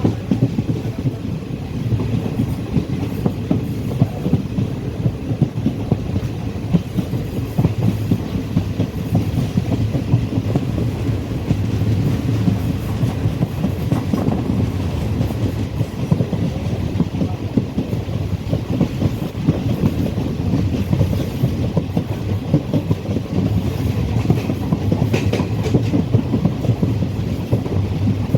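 Passenger train running along the track: a steady rumble with frequent short knocks from the wheels passing over the rail joints.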